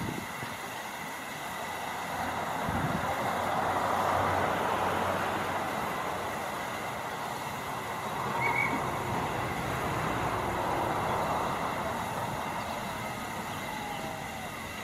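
U-class narrow-gauge steam tank locomotive standing in steam, a steady hiss that swells over the first few seconds and then eases.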